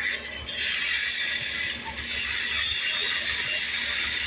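Rapid mechanical clattering that starts suddenly about half a second in and carries on steadily.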